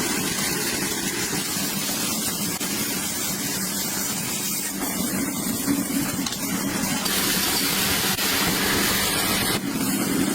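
A motor running steadily with a low hum under a loud, even hiss.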